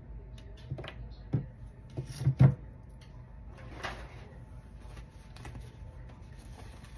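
A few light knocks and taps of small objects being picked up and set down on a tabletop, the loudest pair about two and a half seconds in, over a faint steady hum.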